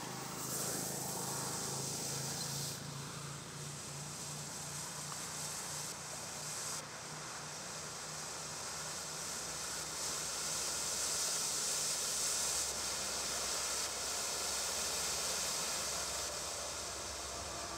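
Small smoke-tube firework venting colored smoke: a steady hiss that runs on without break.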